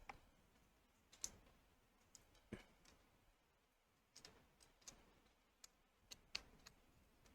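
Scattered faint clicks and light taps of small plastic parts and tools as a laptop is being reassembled and its back cover fitted, about ten in all, at an irregular pace.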